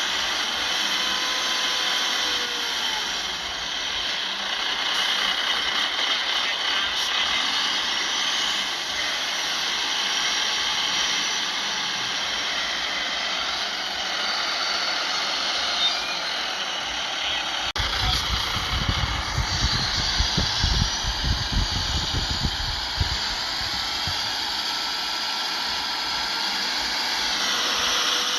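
Heavy earthmoving machinery (a Shantui bulldozer and dump trucks) running steadily, with slow rises and falls in engine pitch. A stretch of low rumbling comes in about 18 seconds in and lasts about five seconds.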